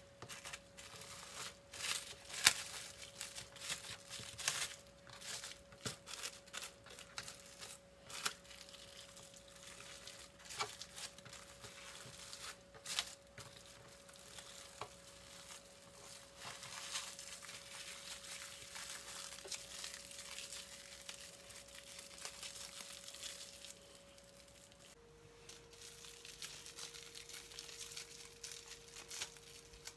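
Plastic cling film crinkling and rustling in irregular crackles as hands roll and twist it tight around a raw stuffed chicken breast. A faint steady hum runs underneath.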